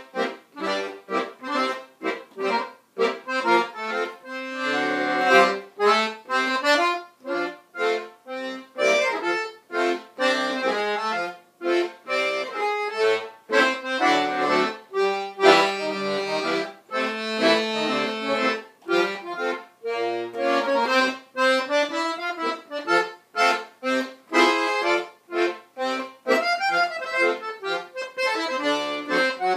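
Solo piano accordion playing a jazz tune, mostly in short, clipped chords with a few longer held notes.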